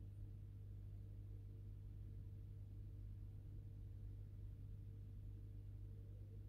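Faint, steady low hum from an aquarium pump, unchanging throughout.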